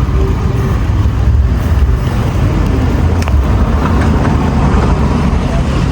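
Steady low rumble of street noise, with a single sharp click about three seconds in.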